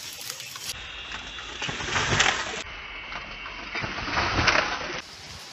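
Woven netting of a pigeon trap swishing shut over pigeons, twice: once about two seconds in and once about four and a half seconds in.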